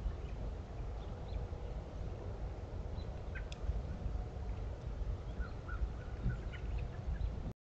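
Outdoor trail-camera sound: a steady low rumble with several faint, short bird chirps scattered through it.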